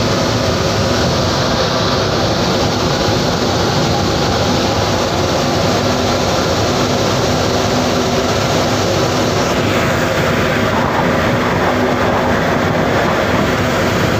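A boat's engine drones steadily under way, mixed with the rush of churning wake water along the hull.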